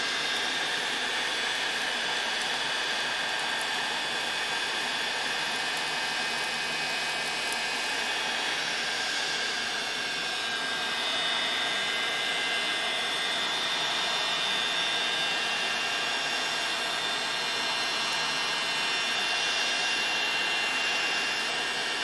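A 1,500-watt, 500 °C Mastercraft heat gun running steadily: a rush of blown air with a steady high whine from its fan.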